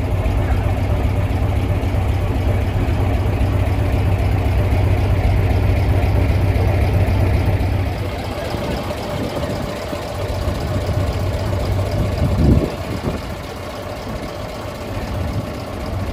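Engine of a hot-rodded 1967 Scania Vabis LS 76 truck idling with a steady low rumble that drops in level about halfway through. A single thump comes about three quarters of the way in.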